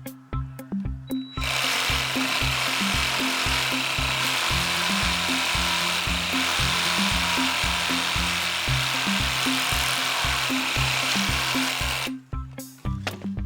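Stanley 18-volt cordless reciprocating saw cutting wood. The cut starts about a second and a half in, runs steadily for roughly ten seconds and stops near the end, with background music that has a steady beat.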